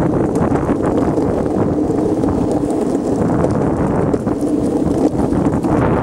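Longboard wheels rolling over rough, cracked asphalt: a steady, even rumble with occasional light clicks.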